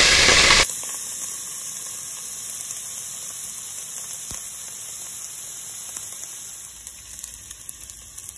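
Diced pancetta frying in its rendered fat in an enamelled cast-iron pot, a steady sizzle. It drops sharply in level under a second in, and scattered crackling pops come more often near the end as the fat renders and the pancetta browns.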